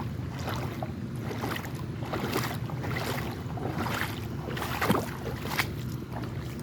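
Creek water running and splashing, with a scatter of small splashes and one sharper splash about five seconds in.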